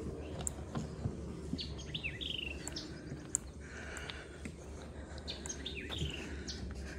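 Songbirds chirping and calling in a swamp woodland, short sweeping notes with a quick trilled phrase about two seconds in and again near six seconds.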